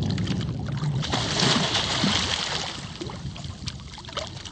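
Hooked pike thrashing at the water's surface beside a boat, splashing and slapping the water, loudest from about a second in until about three seconds, over a low steady rumble.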